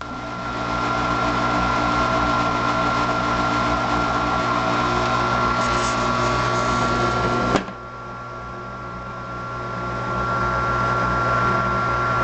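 Grizzly G0705 round-column mill/drill running, a steady motor and spindle hum with a high whine. There is a sharp click about seven and a half seconds in, after which it runs quieter, then builds back up near the end.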